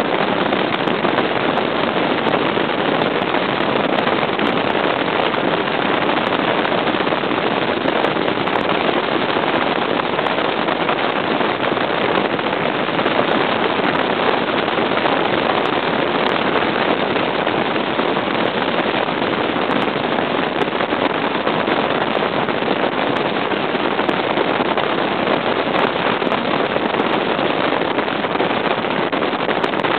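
Stratos bass boat with a Mercury 200 EFI outboard running at speed: a loud, steady rush of wind buffeting the microphone, together with engine and water noise, unchanging throughout.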